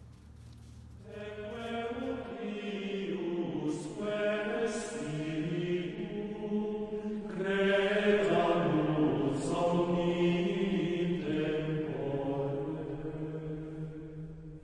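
Slow religious chant sung in unison, in the style of Gregorian plainchant. It enters about a second in, builds, and eases off near the end.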